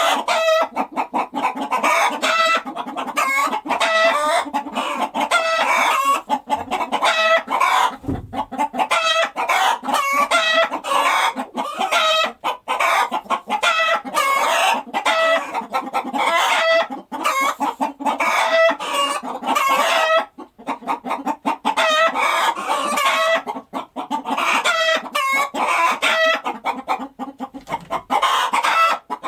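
A flock of chickens clucking, with many short calls overlapping in a dense, unbroken chorus.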